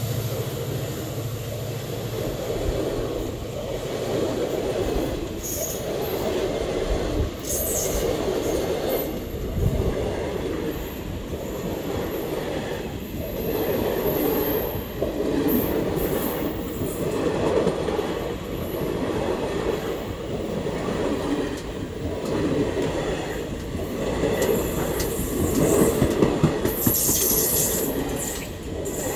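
Sleeper-class passenger coaches of an express train rolling past close by: a steady wheel-on-rail rumble that rises and falls as each bogie passes. The diesel locomotive's engine hum fades out in the first couple of seconds, and a few short high wheel squeals come through, the longest near the end.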